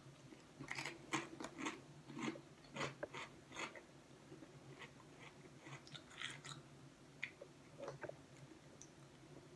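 Crunching of a ridged Estrella potato chip being chewed. The crunches come thick for the first few seconds, then thin out to occasional ones.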